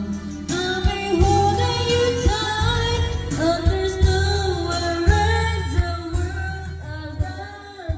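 Background pop song: a singer over guitar and a steady beat, fading down near the end.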